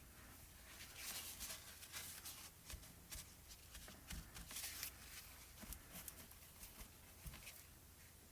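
Faint, quick, irregular scratching strokes of colouring on paper, each a short dry swish, running from about a second in until near the end.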